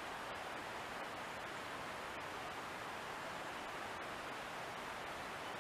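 Steady, even hiss of outdoor background noise with a few faint ticks, and no distinct sound event.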